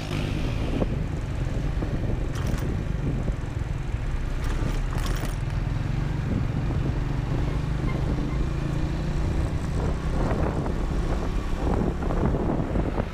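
Motorcycle engine running steadily under way, with a constant rush of road and wind noise.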